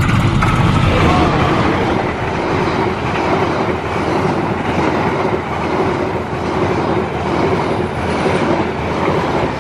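Argo Wilis express train passing close at speed behind a CC206 diesel-electric locomotive. It is loudest in the first second as the locomotive goes by, then the coaches' wheels keep up a steady rumble and clatter on the rails, swelling and easing in a regular rhythm.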